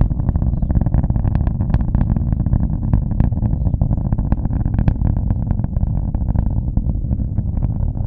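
SpaceX Falcon Heavy rocket's Merlin engines heard from miles away during launch: a continuous deep rumble thick with irregular, rapid crackling pops.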